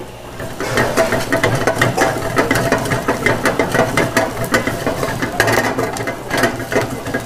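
Metal ladle stirring and scraping in a pan of frying onion masala, with a fast, steady clatter of metal on metal starting about half a second in.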